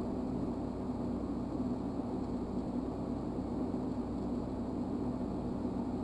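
TIG welding arc burning steadily on steel angle iron while an edge weld is run, an even hum without crackle or pops.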